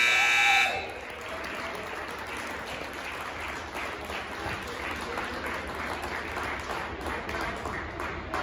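A game buzzer ends under a second in, followed by a crowd applauding and cheering with chatter mixed in.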